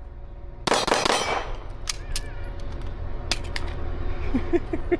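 A quick string of 9mm Glock pistol shots with steel targets ringing on the hits, about a second in, followed by a few sharp, separate metallic clanks.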